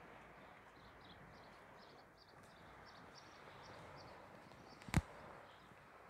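Faint outdoor background with scattered short, high chirps, and one sharp click about five seconds in.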